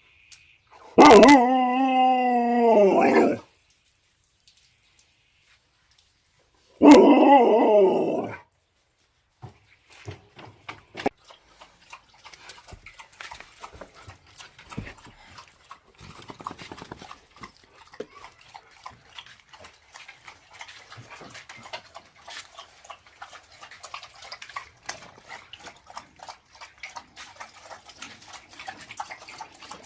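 A dog howling twice, a wavering pitched call of about two seconds starting about a second in and a shorter one about seven seconds in. After that come quieter scattered clicks and rustles.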